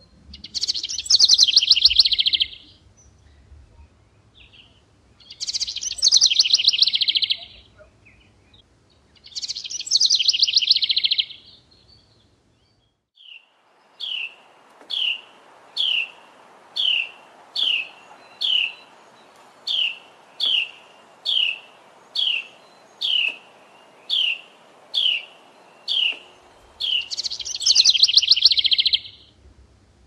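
House wren singing: four fast, jumbled song phrases of about two seconds each, three in the first dozen seconds and one near the end. Between them, over a steady hiss, comes a run of about fourteen short downward-slurred notes, a little more than one a second.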